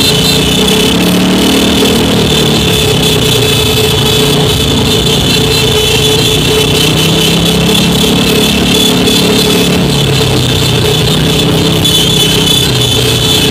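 Many motorcycle and scooter engines running together in a dense, slow convoy, their pitch slowly rising and falling, with a steady pitched tone held throughout.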